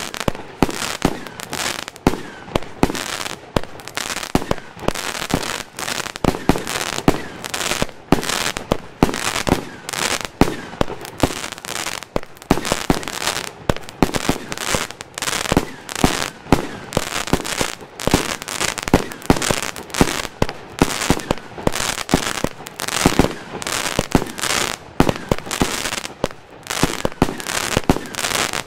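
El Gato Terremoto 36-second, 50-shot 20 mm salute cake firing: shots launch and burst in a fast, unbroken string, a few loud bangs every second.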